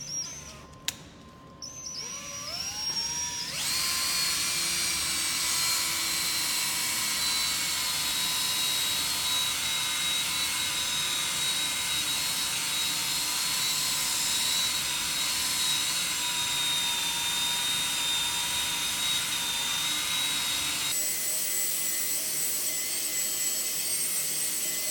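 Drill fitted with a foam polishing pad, buffing a scratch out of car paint. After a brief spin it speeds up with a rising whine, then runs steadily at speed.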